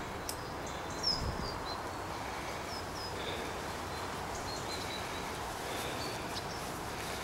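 Birds chirping in short, scattered, high calls over a steady outdoor background hiss, with one brief low thump about a second in.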